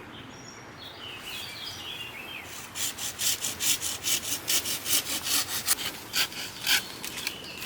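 Small hand saw cutting through a dead hazel branch: a quick, even run of strokes that starts about two and a half seconds in and stops near the end. A bird sings a short descending trill before the sawing and again as it stops.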